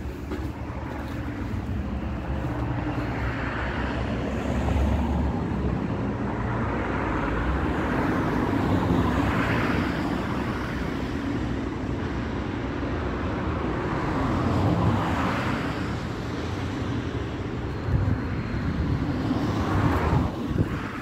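Outdoor road traffic: a steady rumble with vehicles passing every few seconds, each swelling and fading away.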